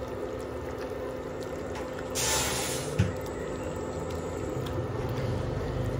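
Silicone spatula stirring and tossing creamy sauce-coated pasta in a nonstick pan, over a steady hum. A brief hiss comes about two seconds in, followed by a single sharp knock.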